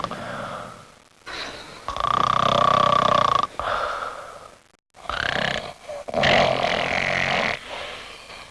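A person snoring loudly in long, rasping breaths with a whistling note, each snore fading away before the next one starts about every three and a half seconds.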